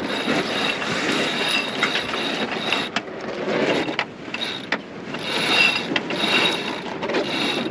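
Sailboat sheet winch ratcheting in several bursts of about a second each, with a few sharp clicks between, as a sheet is hauled in during a tack.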